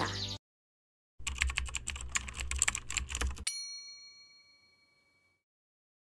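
Logo sound effect: a rapid run of keyboard-typing clicks for about two seconds, ending in a single bright bell ding that rings out and fades.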